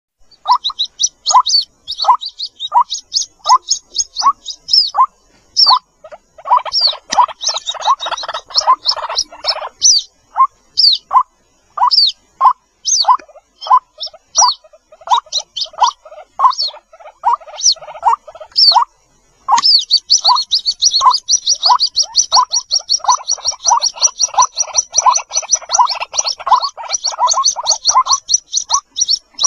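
White-breasted waterhen chicks calling for their parent: short, falling chirps repeated about twice a second, overlaid at the start and again from about two-thirds in by dense runs of rapid high-pitched peeps, with a brief gap just before the second run.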